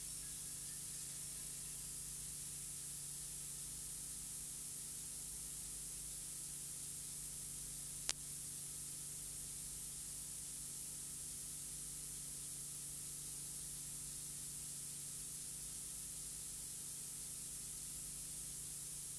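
Steady hiss from the recording with a faint low hum under it, and a single sharp click about eight seconds in; no music or voice.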